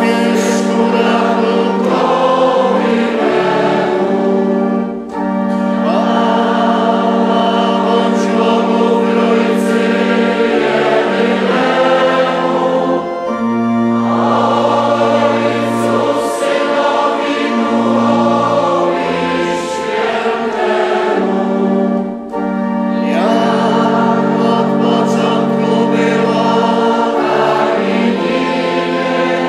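Congregation singing Vespers chant with organ accompaniment. Long held organ chords sit under the sung phrases, and there are short breaths between phrases about 5 and 22 seconds in.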